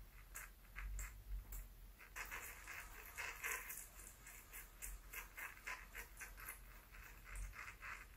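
Faint, quick clicks and pattering from a Shetland sheepdog, a few a second, coming thicker in the middle.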